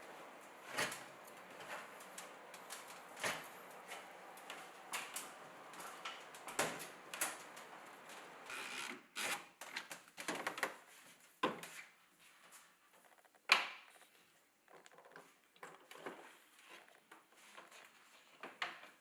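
Irregular light knocks and clicks of things being handled, a few every second or two, the loudest sharp knock about thirteen and a half seconds in.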